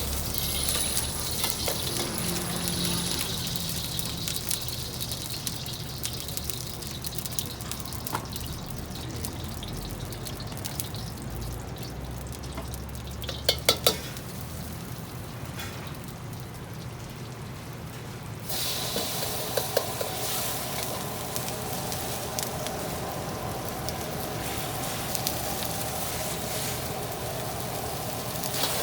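Fried rice frying in a wok: steady sizzling, with a few sharp metal clanks about halfway through. A little past halfway the sizzle grows louder and fuller.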